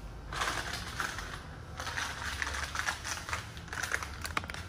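Hands fetching and handling stabilizer bar bushings: a run of irregular clicks and rustles, starting a moment in.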